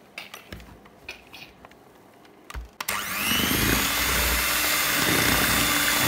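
A few light knocks and clicks, then about halfway through an electric hand mixer switches on with a brief rising whine as its motor spins up, and runs steadily with its twin beaters churning flour into pancake batter.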